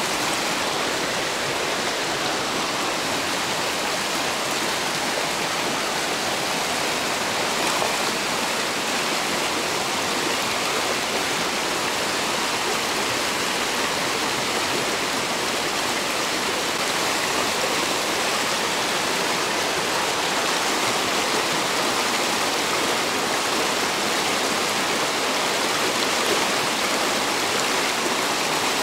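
Mountain river running: a steady, even rush of water.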